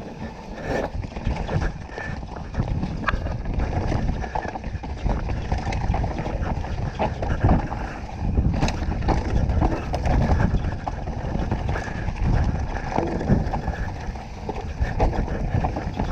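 2018 Canyon Torque CF9 Pro mountain bike riding down a rough trail: tyres rumbling over dirt and rocks, and the bike clattering and knocking over bumps, with wind buffeting the chin-mounted GoPro's microphone.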